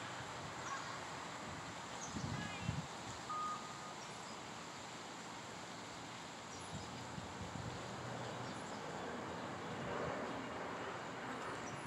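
Steady outdoor background noise, with a few soft knocks about two to three seconds in and one brief, steady high tone shortly after.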